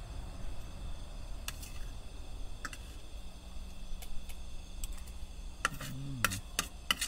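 Kitchen utensils clicking and tapping lightly, scattered at first and more frequent near the end. A short low sound falls in pitch about six seconds in.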